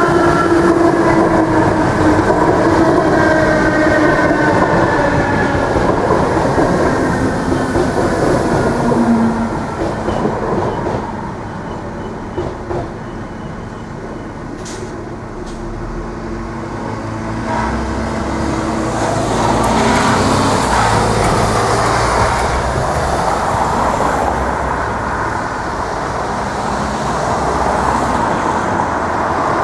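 Irish Rail DART electric train passing through a level crossing. Its motor whine falls in pitch over about the first ten seconds, then fades. After a quieter spell, road traffic rises and a car drives over the crossing near the end.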